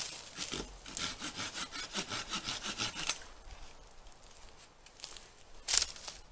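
Hand saw cutting into resinous pine fatwood: a run of quick, even strokes, about six a second, from about a second in to about three seconds in, then slower scraping and a single sharp knock near the end.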